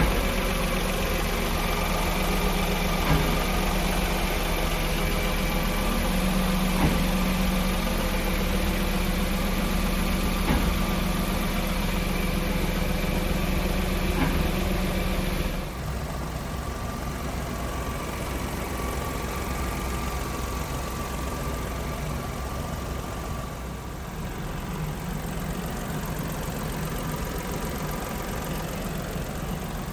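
1999 Daihatsu Hijet S200P kei truck's small three-cylinder engine idling steadily. About halfway through the sound shifts abruptly and gets slightly quieter.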